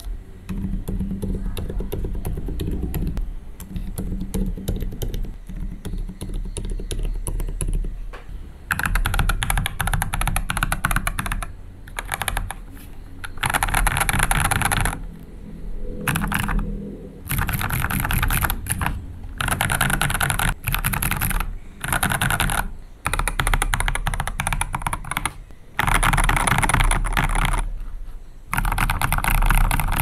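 Fast typing on an AEON Gaming Striker 75% mechanical keyboard with mixed switches: Outemu Silent Peach linears, Durock Medium Tactiles and TTC Flame Red linears. It is softer and duller for the first eight seconds or so, then comes in louder, brighter runs of a second or two with short gaps between them.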